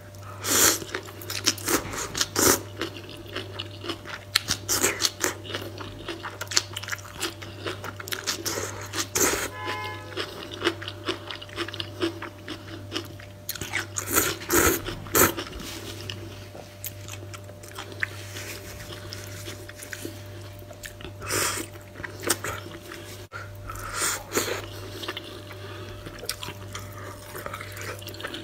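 Close-miked slurping and wet chewing of instant ramen noodles in a spicy broth, in irregular bursts, with a steady low hum underneath.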